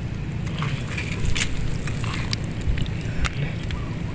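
Wind rumbling on the microphone, with scattered small clicks and wet crackles as fish and shrimp are handled in shallow water.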